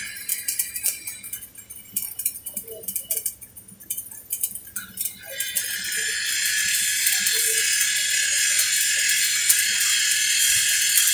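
Electric arc welding: the arc crackles and sputters unevenly at first, then about five seconds in settles into a steady, louder crackling hiss.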